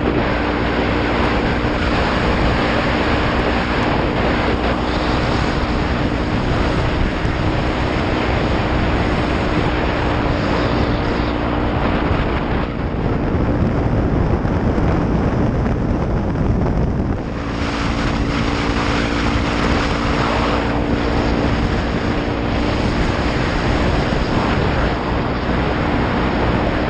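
Heavy wind noise on a helmet-mounted camera at road speed, over the steady hum of a Honda Grom's 125 cc single-cylinder engine running through a Pro Circuit aftermarket exhaust. About halfway through, the engine tone drops away for about four seconds while the wind carries on, then returns.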